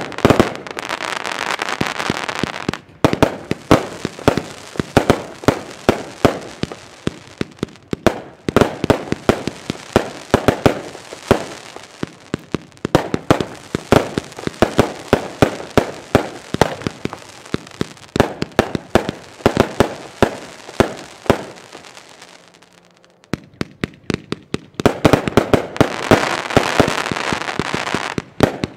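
Lesli 'Zombi Zone' Category I firework compound battery firing a fast run of sharp pops, with stretches of dense crackling at the start and again near the end. The firing thins out to a brief lull about three quarters of the way through, then picks up again.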